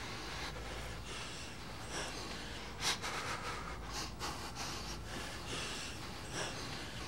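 A man breathing heavily in short, ragged breaths and sniffs, about one every half second to a second, the sharpest about three seconds in, over a low steady hum.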